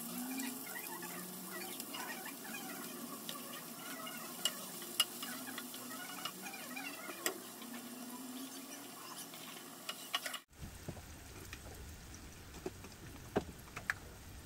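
Sliced onions frying in oil in a nonstick pan: a soft, faint sizzle with scattered sharp clicks of a spatula stirring against the pan. About ten seconds in the background changes abruptly.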